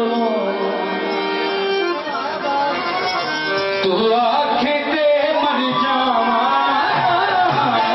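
Punjabi folk song music playing loudly: a passage with a melody instrument whose line holds and wavers, over a steady accompaniment.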